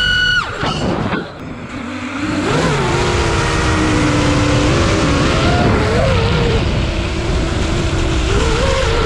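FPV drone's electric motors whining at a high steady pitch, falling steeply about half a second in. After a brief dip they come back at a lower pitch, wavering up and down with the throttle, over a rush of wind noise.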